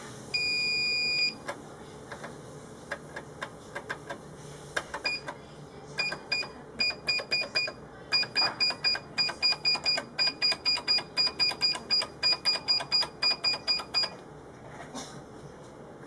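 An Easycut controller's keypad beeper sounds one steady beep about a second long, followed by several sharp key clicks. Then comes a fast run of short beeps at the same pitch, three or four a second, as keys are pressed one after another during a keyboard test.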